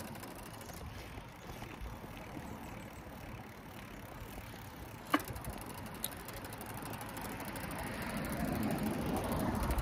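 Bicycle being ridden: a steady rolling rush of noise, with a sharp click about five seconds in and a swell of louder noise building toward the end.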